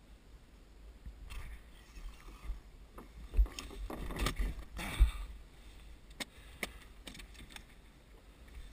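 Knocks and bumps in a small open boat at sea: two sharp thumps about three and a half and five seconds in, with scattered light clicks and a low steady rumble underneath.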